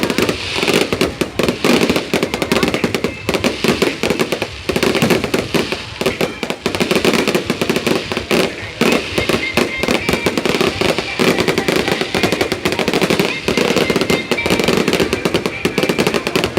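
Fireworks display going off in rapid succession: a dense, continuous string of sharp bangs and crackles.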